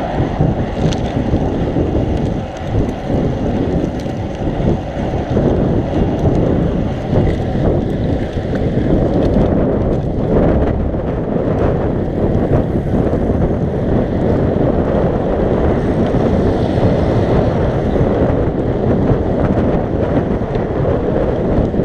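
Steady, loud wind noise buffeting an action camera's microphone as the rider pedals a road bike at speed.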